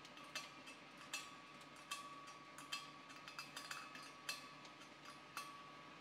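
Adjustable wrench clinking on the brass hex nut of a POL tank connector as it is tightened into a propane cylinder valve. Sharp metallic clicks come roughly once a second, with a quicker cluster in the middle, each ringing briefly.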